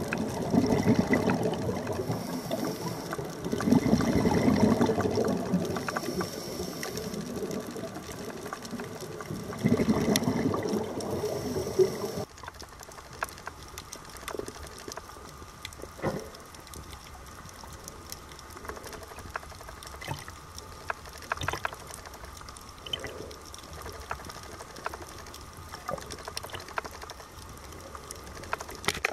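Underwater water noise: swelling rushes of bubbling water for the first dozen seconds. Then, after a sudden drop, a quieter hiss with scattered clicks and crackles.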